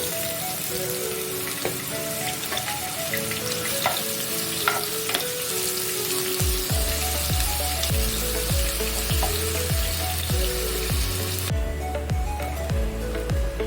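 Food sizzling as it fries in oil in a pan, with a few sharp taps of a spoon or spatula in the first half. The sizzle cuts off near the end. Background music plays throughout, and a heavy bass beat comes in about halfway.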